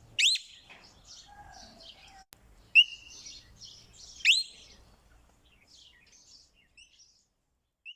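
Parrot calling: three loud, sharp rising calls with softer chattering between them, growing sparse and faint near the end.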